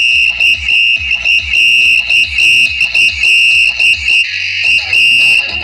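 Loud music on a sound system during a sound check: a high-pitched, whistle-like beeping tone pulses in a quick rhythm over deep bass thumps. The beeping breaks off briefly about four seconds in.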